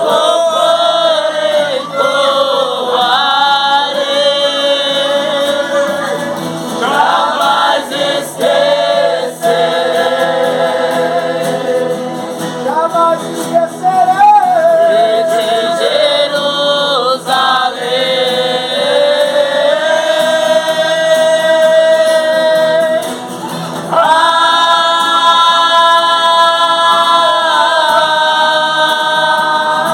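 Gospel-style vocal music: singing with long, wavering held notes. The singing breaks off briefly about three-quarters of the way through, then resumes on a new held note.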